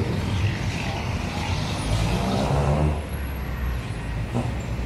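Street traffic: motor vehicle engines running with a steady low rumble and road noise.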